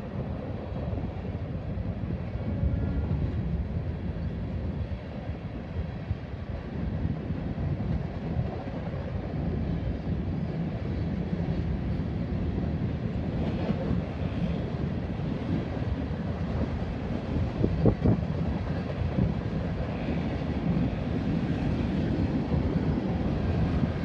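Freight cars of a loaded rock train rolling through a grade crossing: a steady rumble of wheels on the rails, with a sharp clank about three-quarters of the way through.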